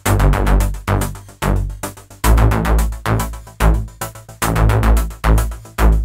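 Closing-credits music with a steady heavy beat and deep bass hits.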